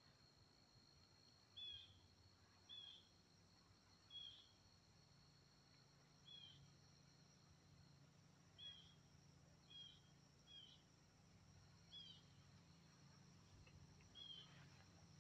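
Faint outdoor ambience: a bird gives a short chirp about every one to two seconds, some nine times, over a steady high-pitched drone of insects.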